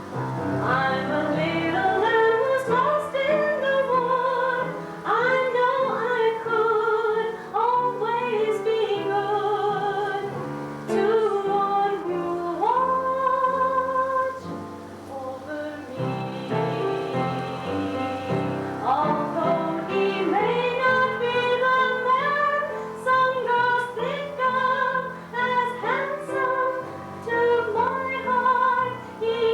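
A woman singing a slow ballad with marked vibrato over instrumental accompaniment, with a short break in the singing about halfway through.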